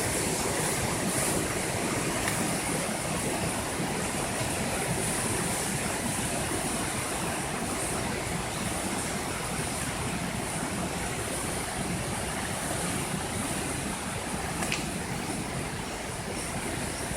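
The Birs river in flood after days of heavy rain, its fast, swollen water giving a steady rushing sound.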